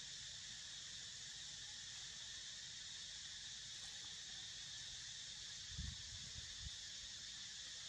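Steady, high-pitched chorus of insects. A few short low thumps come about six seconds in.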